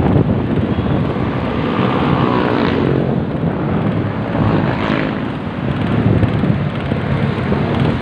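Steady rushing wind buffeting a bicycle-mounted phone microphone while riding, with street traffic mixed in underneath.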